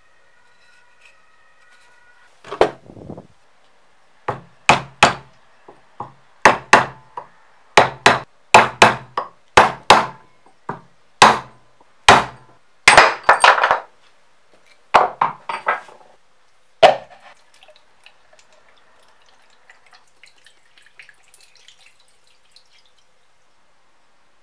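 A hammer striking a steel punch again and again, driving the old wooden handle out of the eye of a club hammer head: a long run of sharp, ringing metal-on-metal blows, some in quick pairs, that stops about two-thirds of the way through, followed by a few faint scratches.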